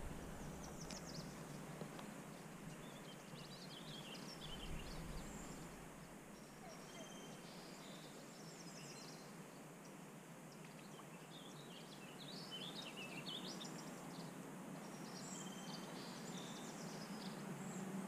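Songbirds chirping over and over, busier in the second half, over a steady, faint rush of river water.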